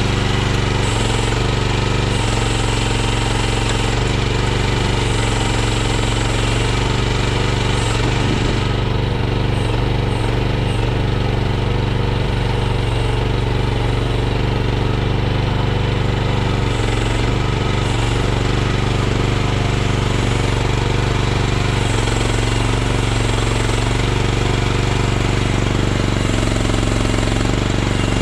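Mini excavator's 13.5 horsepower Briggs & Stratton XR engine running steadily under a working load, its note shifting briefly a few times as the machine is operated.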